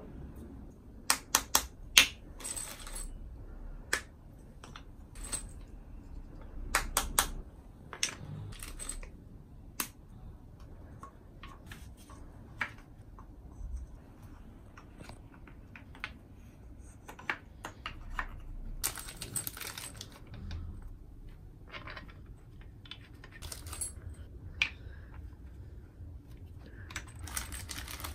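Scattered light clicks, clinks and taps of small metal fittings and flat-pack hanger parts being handled and fitted together on a tile floor, with a few brief plastic-bag rustles.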